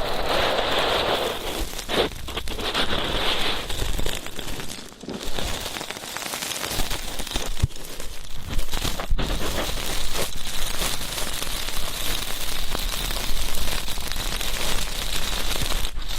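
Ear-cleaning ASMR sounds: close, dense scratching and crackling of a tool worked against a microphone's ear, with short breaks about five and nine seconds in.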